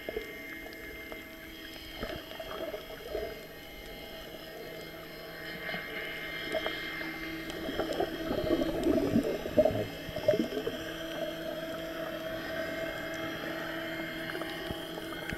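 Muffled underwater sound: a steady motor hum carried through the water, with bubbling and crackling that builds about six seconds in and eases after ten.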